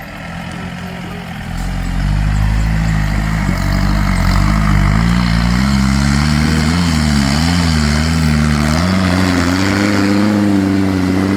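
Off-road vehicle's engine pulling under load. It picks up about two seconds in, its pitch rising and falling repeatedly through the middle, then holds steadier and higher near the end.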